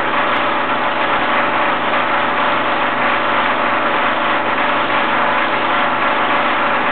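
A 16mm film projector running: a steady whirr and hiss with a low hum underneath.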